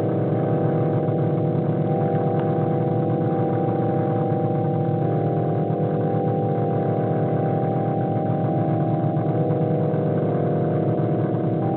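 ANS spectral synthesizers playing together: a loud, continuous drone made of many sustained low tones stacked on one another, with individual tones shifting or dropping out now and then.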